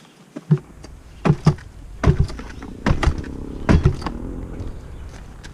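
A series of irregular knocks and thumps, about eight strikes in four seconds, as a bent dirt bike brake pedal is forced back into shape.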